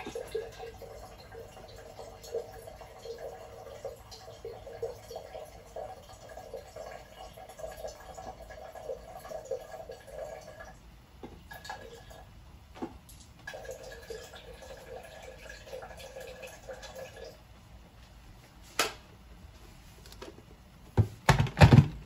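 Refrigerator door water dispenser running, water pouring into a container: a steady flow with a hum for about eleven seconds, a short stop, then a second fill of a few seconds. A sharp click follows, and a few loud knocks come near the end.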